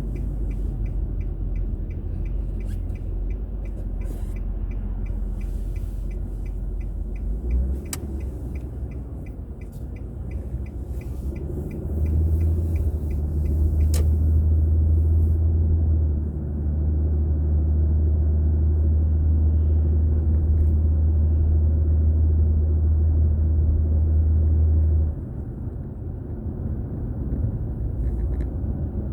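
Car driving, heard from inside through the dashcam: a steady low road and engine rumble. The rumble swells much louder for about thirteen seconds in the middle, then drops back. A fast, even ticking runs through the first six seconds, and two sharp clicks come about eight and fourteen seconds in.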